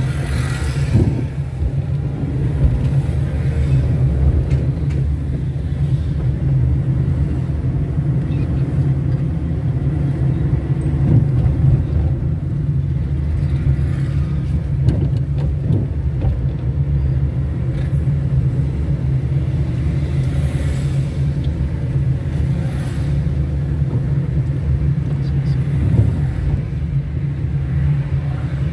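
Steady low rumble of a car driving slowly in city traffic: engine and tyre noise.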